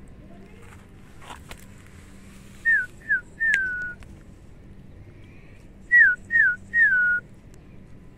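A person whistling a call: two phrases of three falling notes, two short ones and a longer third, the second phrase about three seconds after the first.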